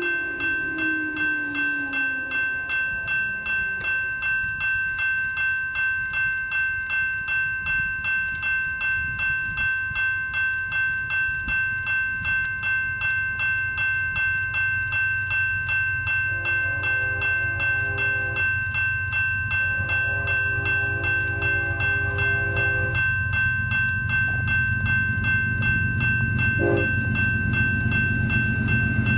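Railroad grade-crossing bell ringing steadily at an even, rapid rhythm as a freight train approaches. The lead GE Evolution-series locomotive's horn sounds two long blasts about halfway through and a short one near the end, the start of the grade-crossing signal. A low rumble from the locomotives grows louder toward the end.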